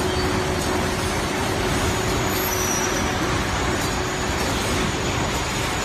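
Automatic cartoning machine running: a steady mechanical whir with a faint steady hum that fades out about four seconds in.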